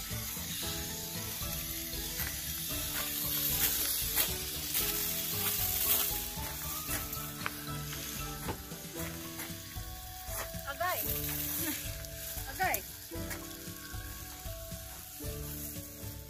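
Hiss of water running through a hose-fed car-wash brush as it scrubs a car's wet body panels, with background music playing underneath.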